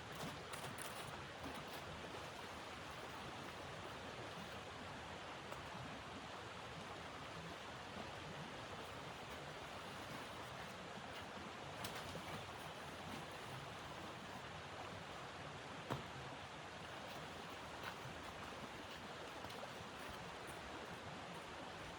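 Steady hiss of blizzard wind, with a few faint clicks.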